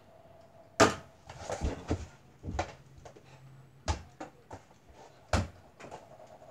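Small ball of a door-mounted mini basketball hoop knocking against the backboard and the door, a sharp knock about a second in and several more over the next five seconds, some lighter.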